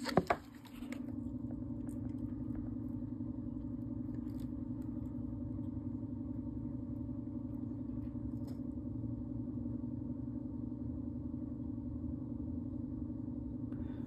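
Steady low machine hum with a low rumble beneath, unchanging throughout, after a couple of short clicks at the start.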